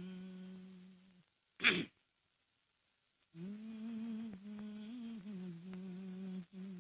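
A man humming in a low voice, first holding one note. About a second and a half in comes a single short, loud throat noise. From about halfway the humming returns with the tune moving up and down, warming up before the song.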